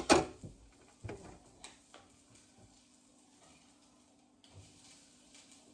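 Kitchen utensil knocking against a frying pan while a chicken schnitzel is turned: one sharp clatter, then a few light taps, followed by a faint steady hum.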